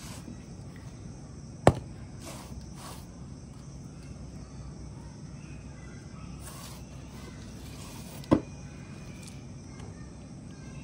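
Steady low background noise broken by two sharp knocks, about six and a half seconds apart.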